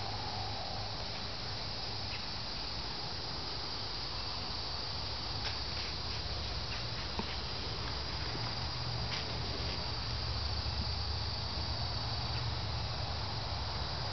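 Steady high-pitched chorus of insects such as crickets, unbroken throughout, with a low rumble underneath and a few faint clicks around the middle.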